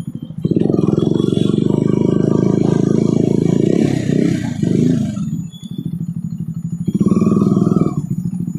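KTM motorcycle's single-cylinder engine running at low speed with the rider on the throttle. It eases off about five seconds in, then is opened up briefly for a second near the end.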